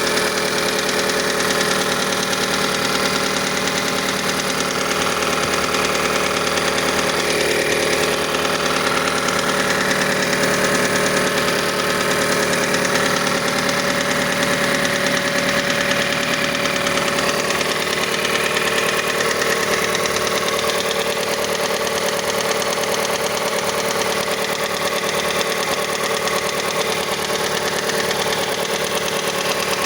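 Mazda CX-5 engine idling steadily with a rapid knock. The owner says the knock lasts until the engine warms to about 70 °C, that its cause is unknown, and suspects the variable valve timing mechanism.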